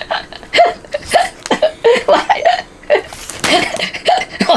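An elderly man hiccuping and laughing in a quick series of short voiced bursts, about two a second, with a brief pause a little past halfway; the hiccups are brought on by eating pork rinds.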